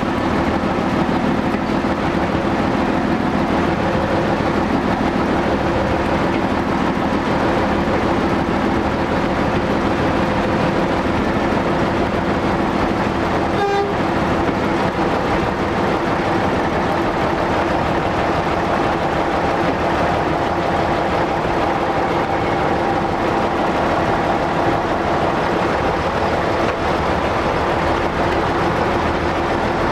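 Walker diesel railmotor running steadily along the line, with its engine and the wheels on the rails heard from inside the driver's cab.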